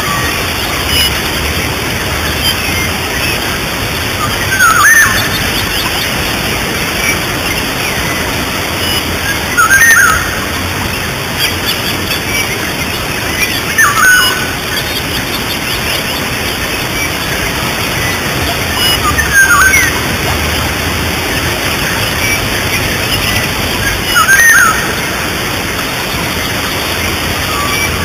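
Steady rush of a jungle waterfall and stream. Over it a bird gives a loud, short sweeping call about every five seconds, six times in all.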